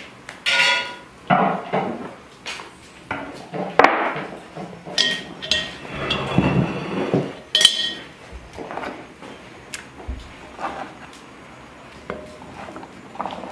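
Cast iron cookware being handled on a wooden table: a run of knocks and clanks, a few ringing briefly, with a longer scrape of a wooden spoon in the iron pot a little past halfway.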